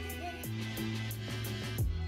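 Background music with a steady beat: a bass line under regular cymbal ticks.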